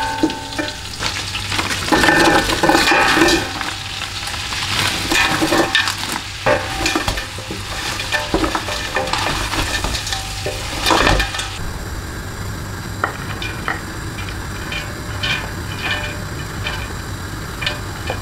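Food sizzling and frying in a stainless steel stockpot while a wooden spoon stirs it, knocking and scraping against the pot in irregular clicks.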